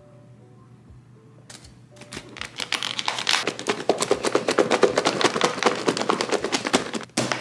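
Lidded clear plastic salad bowl shaken hard to toss salad leaves in dressing: a rapid rattling clatter of leaves and lid that starts about two seconds in and runs for about five seconds.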